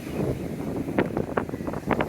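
Wind buffeting the microphone over the rumble of surf, with a few short knocks or crackles about a second in and again near the end.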